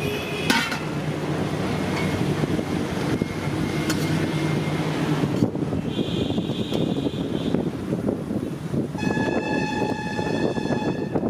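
Roadside traffic with an engine running nearby and vehicle horns honking: a short high horn about six seconds in, and a longer horn from about nine seconds to near the end.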